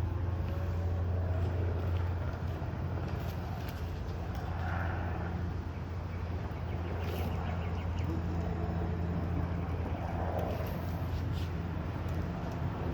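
A steady low hum, with a few faint, scattered clicks and taps of hand tools as the set screws on a pump's capacity adjuster housing are tightened one at a time.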